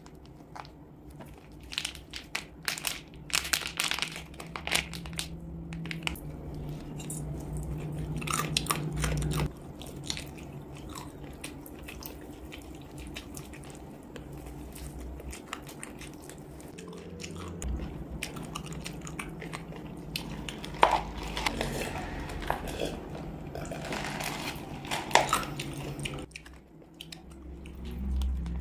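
Close-up eating sounds: spicy packaged chicken feet being bitten and chewed, with repeated wet clicks and crunches. A plastic snack packet crinkles as it is handled and torn open, and a steady low hum in the background stops a couple of seconds before the end.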